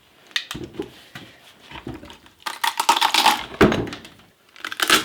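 Green sycamore log being pried apart along a split: wood fibres crackling and tearing in a dense run of clicks from about halfway in, with a few sharp wooden knocks, the loudest two near the end.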